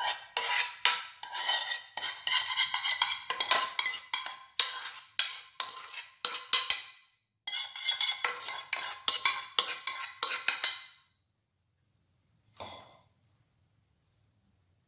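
Metal spoon scraping and clinking rapidly against a metal pan, scooping out the last of the cooked chocolate sauce, with a faint ring from the metal. The clinking stops about eleven seconds in, followed by one short scrape a little later.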